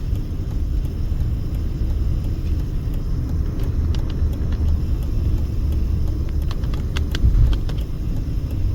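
Steady low road and engine rumble inside a moving car's cabin at highway speed, with a few light clicks in the second half.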